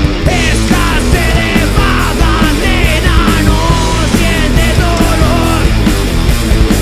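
Rock band playing: distorted electric guitar, bass and drums, with a high lead line of quick, repeated falling slides over the top.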